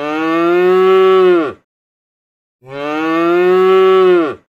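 A cow mooing twice: two long moos about a second apart, each dropping in pitch at the end.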